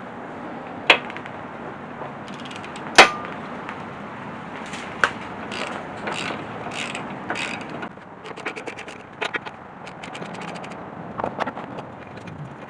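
Hand tools working on a car engine: a few sharp metal clanks, the loudest about three seconds in, followed by short runs of quick clicking.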